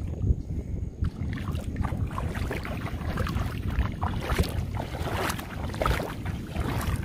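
Footsteps wading through shallow water, irregular splashing and sloshing that starts about a second in, over a steady low rumble of wind on the microphone.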